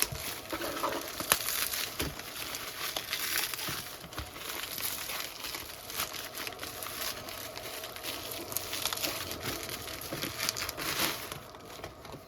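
Packaging being handled and unwrapped, a continuous crinkling and rustling with a few sharp clicks and knocks. It quietens shortly before the end.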